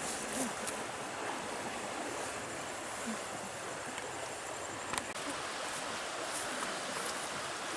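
River water rushing steadily past the bank, with a sharp knock about five seconds in.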